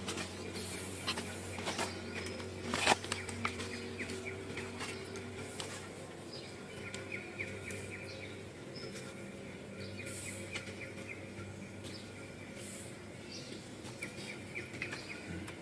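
Outdoor ambience: short high chirps over a steady low hum, with scattered clicks in the first few seconds, the sharpest about three seconds in.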